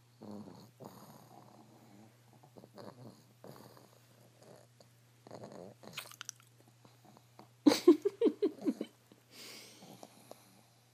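Pugs snoring in their sleep: a string of raspy breaths roughly a second apart, with a louder burst of quick rattling, grunting breaths about eight seconds in. It is the noisy breathing typical of the breed's short, flat-faced airway.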